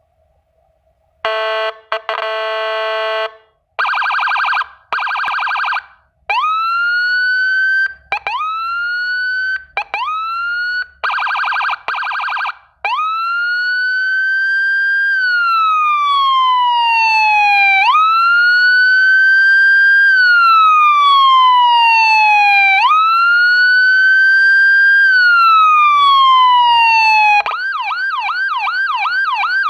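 Whelen 295HL electronic siren running through its tones. First come several blasts of a buzzy horn tone and short rising whoops that cut off. Then a slow wail rises and falls about every five seconds, switching near the end to a fast yelp of about three and a half sweeps a second.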